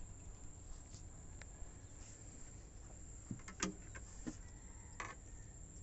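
Insects in the riverbank trees keep up a faint, steady high-pitched drone over a low rumble of wind. A few light knocks and clicks come in the middle, the loudest about three and a half seconds in.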